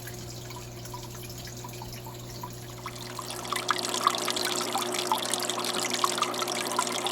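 Aquarium waterfall trickling and splashing off a stone into the tank water, with a steady low hum underneath. The splashing is sparse at first and grows fuller and louder about three and a half seconds in.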